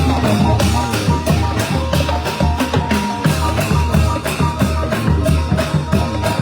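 Thai brass band (trae wong) playing an upbeat tune, with drums and percussion keeping a steady driving beat under the horns.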